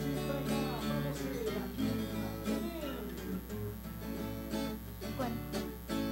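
Two acoustic guitars play an instrumental interlude between sung verses, picking a melody over sustained chords.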